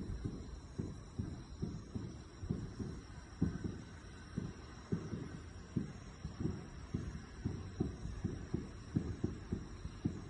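Distant fireworks going off in a rapid, irregular series of low, muffled booms, two to three a second.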